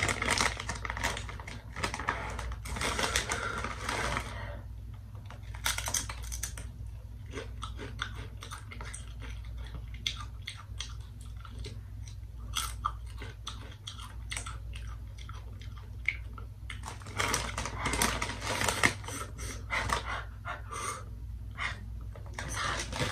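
Close-up crunching and chewing of Paqui Haunted Ghost Pepper tortilla chips, a run of short crisp crunches. The chip bag crinkles for a few seconds at the start and again near the end.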